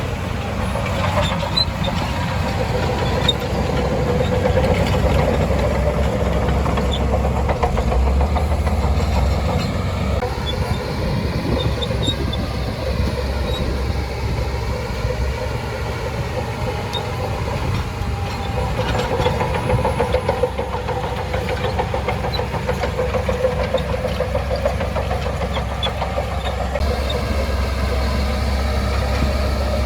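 Shantui DH17C2 crawler bulldozer's diesel engine running steadily, its pitch shifting slightly as it works, with faint scattered clicks over it.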